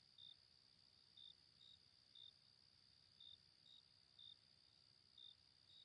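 Crickets chirping faintly in short single chirps, about one a second, over a faint steady high tone.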